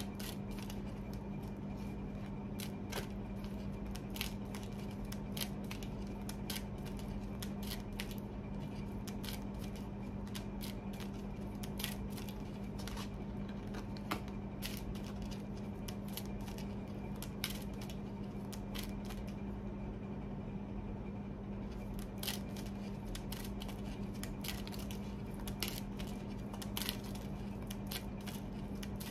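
A deck of tarot cards being shuffled in the hands, giving a continuous irregular run of light card clicks and snaps over a steady low hum.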